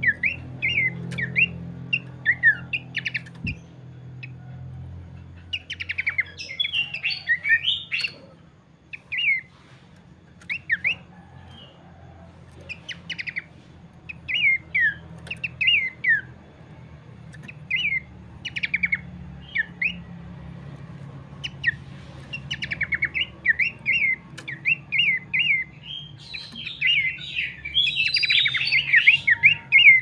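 Pelanduk semak (a Malacocincla babbler) singing in its cage: runs of clear, short downslurred whistles, broken by busier, louder bursts of chattering song about six seconds in and again near the end.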